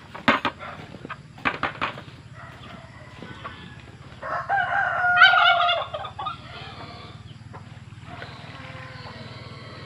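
A rooster crows once, a single long call of about a second and a half starting about four seconds in, the loudest sound here. Before it come a few short, sharp taps.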